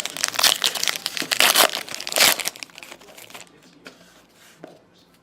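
Trading-card pack wrapper crinkling as it is torn open, for about three seconds, then quieter light ticks of the cards being handled.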